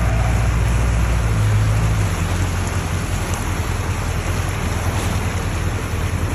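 A vehicle driving through deep flood water: a steady rush and wash of water over a low engine hum, which is strongest for the first couple of seconds and then eases.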